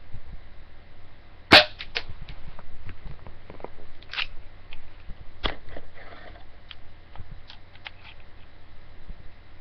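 Gas-powered BB pistol firing once, a sharp crack about one and a half seconds in, followed by several lighter clicks and knocks from the gun being handled.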